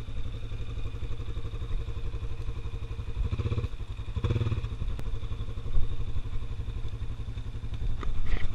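Honda Rincon 680 ATV's single-cylinder four-stroke engine running at low speed, rising briefly twice about three and four seconds in as the throttle is opened.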